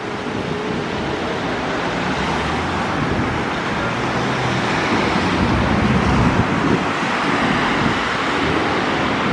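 Road traffic passing: cars driving by, a steady wash of engine and tyre noise, swelling slightly in the middle.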